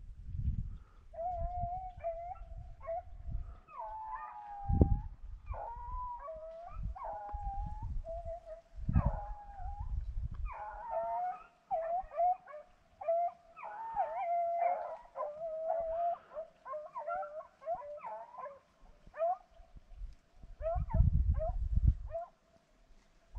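Several rabbit-hunting dogs baying and howling on a chase, their overlapping calls starting about a second in and running on, the sign that they are on a rabbit's track. Low rumbling bumps on the microphone, loudest about five seconds in and near the end.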